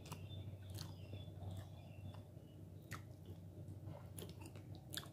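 Close-miked eating sounds: a person chewing chicken curry and rice with wet mouth clicks and smacks, and fingers squishing into the saucy food on the plate. A low steady hum runs underneath.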